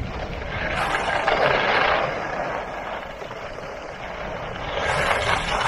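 Rushing noise of skiing downhill, a hiss of skis over snow mixed with wind on the microphone, swelling about a second in and again near the end.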